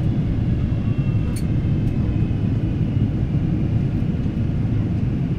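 Steady low rumble of a Boeing 777-300's engines and airflow, heard inside the passenger cabin, with a faint high whine over it. There is a single light click about a second and a half in.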